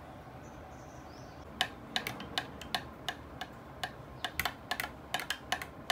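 Metal spoon clinking against the inside of a glass cup while stirring a drink: a run of light, quick clinks, about three or four a second, starting about one and a half seconds in.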